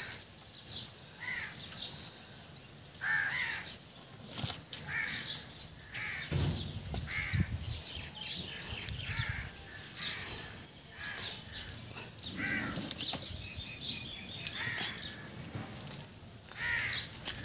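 Crows cawing repeatedly, with a brief run of higher bird chirps about thirteen seconds in. From about six to nine seconds in there is low rumbling and knocking as stones are lifted and shifted.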